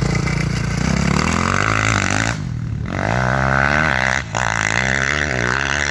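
Dirt bike engine revving hard under load, its pitch climbing as it accelerates up a sand hill. The sound cuts out briefly twice, about two and a half and four seconds in.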